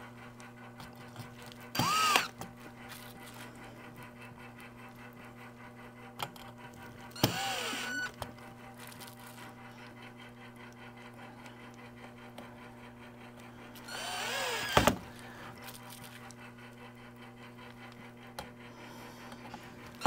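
18-volt cordless drill/driver driving small screws into a display's metal bracket, in three short runs with the motor whine winding up and back down each time.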